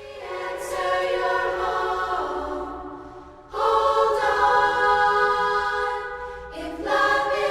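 Music of sustained choral chords, with a new chord swelling in at the start, about halfway through and again near the end.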